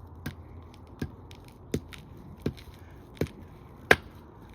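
Six sharp blows struck on an alarm clock's power plug set down on concrete, evenly spaced about three-quarters of a second apart, the last the loudest.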